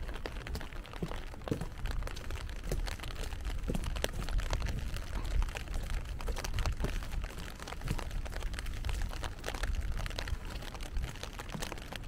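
Rain falling steadily, with a dense, irregular patter of close raindrops ticking over a low rumble.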